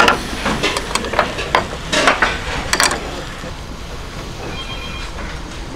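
Metal pot tongs clicking and knocking against a hot earthenware ttukbaegi several times in the first three seconds, then a steady sizzle of Korean steamed egg bubbling in the pot over the gas flame.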